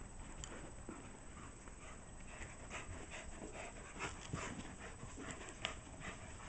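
A dog panting in quick, faint breaths while playing.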